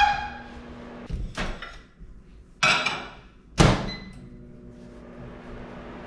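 Microwave oven running with a steady low hum. Over the hum come a few knocks, then a noisy rustling burst, and a little past halfway a sharp thud with a short ring, the loudest sound.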